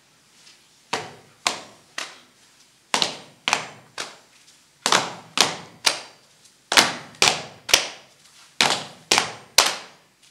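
A rhythmic series of sharp knocks or stamps in short groups of three or four, about two a second with brief pauses between groups, each ringing briefly in the hall.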